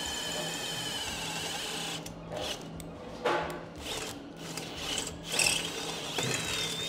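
Cordless drill boring into a steel motorcycle frame tube, its motor whining steadily under load, then stopping abruptly about two seconds in. It is followed by short, uneven bursts of drilling and knocks.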